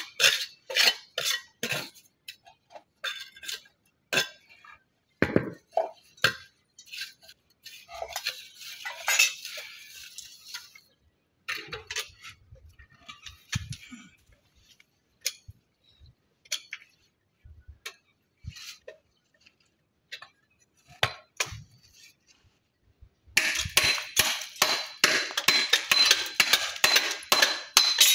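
Irregular clinks and taps of flat stone pieces and masonry tools being handled and set into mortar. About 23 seconds in, a fast run of sharp knocks starts abruptly, several a second, as two pieces of wood are struck against each other.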